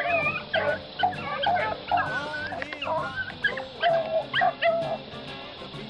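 A pack of beagles baying on a running rabbit's scent: many overlapping, drawn-out hound calls, thinning out near the end.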